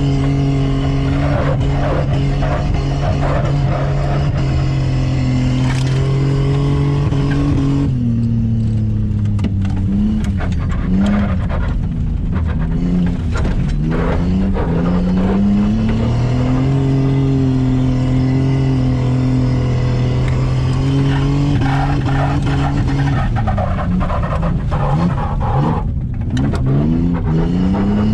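Car engine held at steady high revs while doing skids, with tyre noise underneath. The revs drop and climb back up a third of the way in, then dip and rise again near the end.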